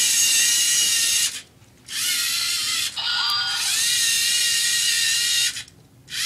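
Lego Mindstorms EV3 robot's servo motors whining as it drives, in three stretches split by short pauses, the pitch rising each time the motors speed up.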